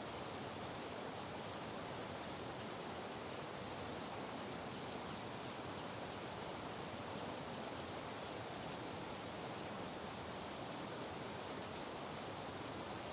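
Steady rushing of fast-flowing river water, an even noise that does not change.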